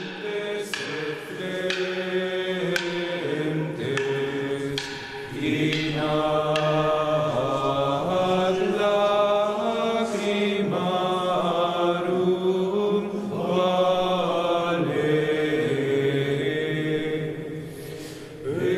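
Male voices chanting a slow monastic plainchant in unison, holding long notes that step up and down in pitch. Sharp knocks sound now and then over the first several seconds.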